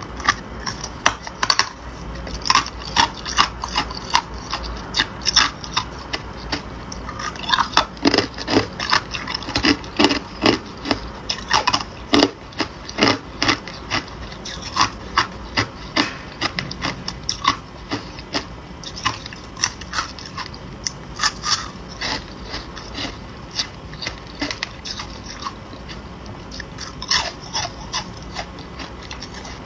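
A person biting and chewing ice: a long run of sharp, irregular crunches and cracks, coming thickest about eight to thirteen seconds in.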